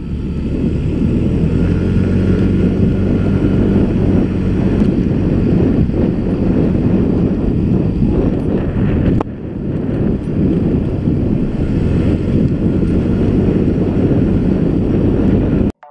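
Wind buffeting the microphone over the engine and road noise of a small motor scooter being ridden along a road, with a short dip about nine seconds in. It cuts off suddenly near the end.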